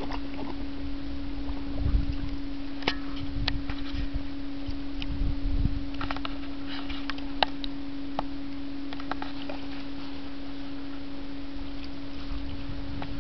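Bernese mountain dog wading and pawing in shallow water in a plastic kiddie pool: scattered small splashes, sloshes and knocks. A steady low hum runs underneath throughout.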